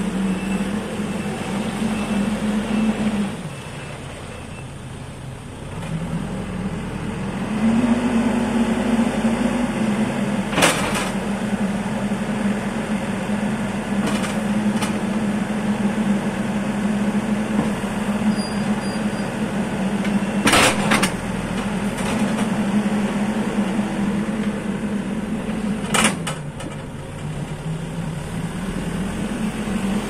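MST M644 Plus backhoe loader's diesel engine running, easing off for a few seconds about three seconds in, then revving up again and holding steady. Three sharp knocks come at intervals through the running.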